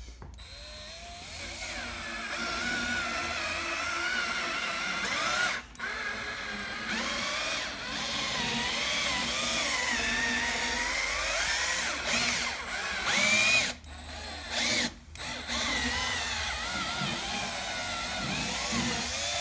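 Cordless drill running at low speed, spinning a buffing pad against a bare aluminum snowmobile tunnel to spread metal polish. Its motor whine wavers in pitch as the trigger is feathered, and it stops briefly a few times.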